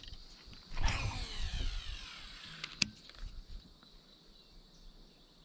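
A fishing cast: the reel's spool whirs, falling in pitch over about a second, then a single sharp click follows about two seconds later.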